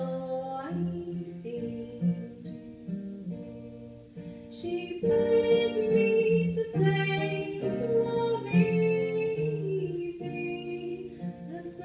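A woman singing a slow traditional Irish song with long held notes, accompanied by acoustic guitar, heard live through a PA. The voice grows louder about five seconds in.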